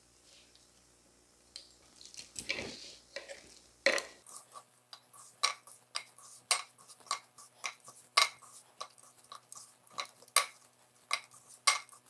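Rice-flour dough being kneaded by hand in a metal bowl: soft squishing and scraping at first, then from about four seconds in a steady run of short clicks and knocks, about two a second, as the hand presses the dough against the bowl.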